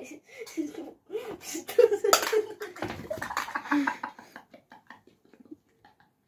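A boy making short wordless vocal sounds and exclamations, with a thump about three seconds in as he drops onto a tiled floor.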